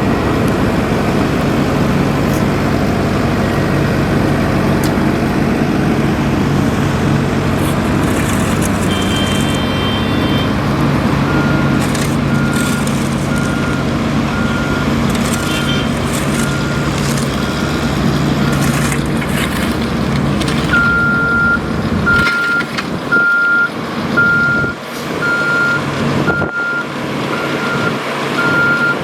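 Heavy construction machinery running with a steady diesel engine hum, joined by a reversing alarm beeping about once a second. The alarm starts faint about a third of the way in and becomes loud near the end, as the engine hum falls away.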